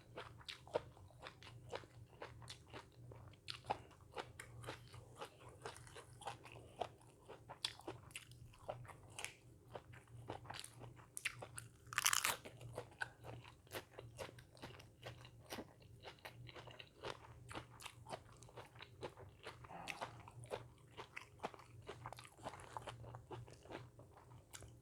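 A person chewing and crunching food close to the microphone: a steady stream of small, sharp crunches, with one louder crunch about halfway through. A low steady hum runs underneath.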